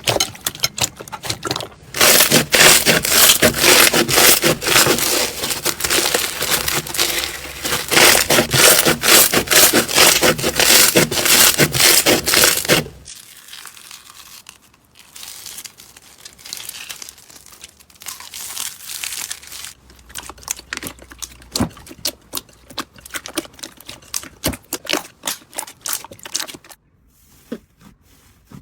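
Slime being squeezed and worked by hand, giving dense crackling clicks for about ten seconds, then quieter, scattered pops and clicks.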